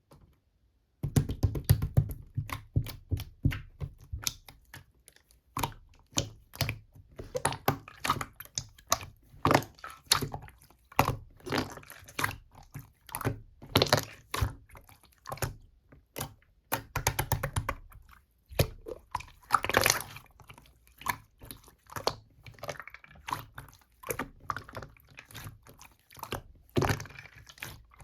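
Slime being worked by hand, squished and pressed, giving a dense run of short wet clicks and pops, with a brief pause about two-thirds through.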